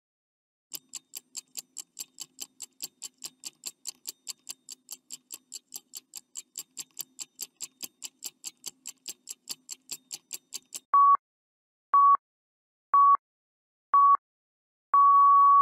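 Countdown timer sound effect: a clock ticking quickly and evenly, about four ticks a second, for some ten seconds. Then come four short beeps a second apart and a longer final beep at the same pitch, signalling that time is up.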